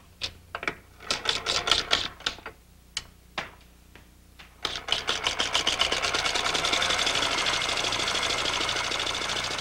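Wooden Lumière cinématographe: a few separate clicks and clatters as film is threaded into the gate, then from about five seconds in a fast, even mechanical clatter as the hand crank is turned and the mechanism advances the film.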